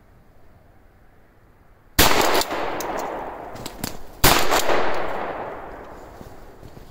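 Two shotgun shots at a cottontail rabbit, about two seconds apart, each followed by a long echo dying away through the woods. The second shot is the louder one.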